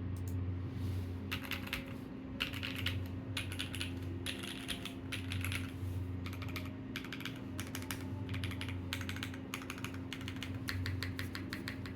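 Keyboard being typed on in a sound test, with bursts of quick key clicks that start about a second in and run closer together near the end, over a steady low hum.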